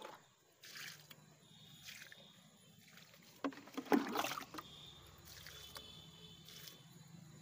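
Liquid poured from a container onto a plant's soil, splashing and trickling in a few faint, uneven bursts over a faint steady low hum.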